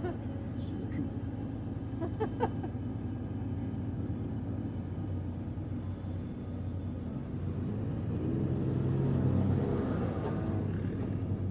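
Off-road 4x4 SUV engine running under load while climbing sand dunes, with a steady low rumble that grows louder and strains about eight to ten seconds in.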